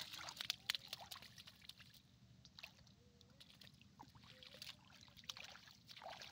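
Faint splashing and trickling of shallow muddy water as hands work a wet cast net with fish caught in it. A few sharper splashes come in the first second.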